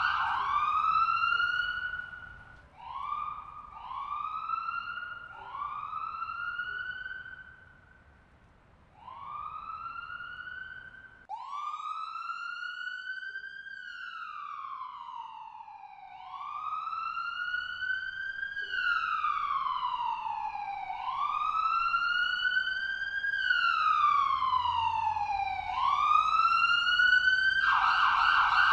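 Ambulance siren cycling through its tones. First come several short rising whoops that fade out, with a brief near-quiet gap. Then comes a slow wail that climbs and falls every few seconds, switching to a fast yelp near the end.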